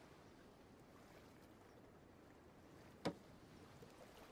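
Near silence: faint, even background hiss, broken once about three seconds in by a single short click.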